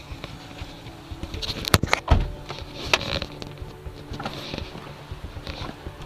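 Handling noise from a camera being unclipped from its dashboard mount and carried off: a few sharp clicks and knocks, with a heavy thump about two seconds in, over a faint steady low hum.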